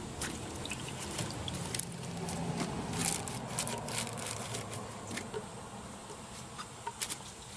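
Irregular light clicks and small scrapes of hand tools and parts being handled on an engine, over a faint steady background hum.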